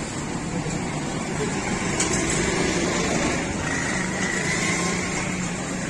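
Steady background noise of a busy street-side barbecue stall: a continuous hum and hiss from traffic and machinery, with a faint high tone near the middle.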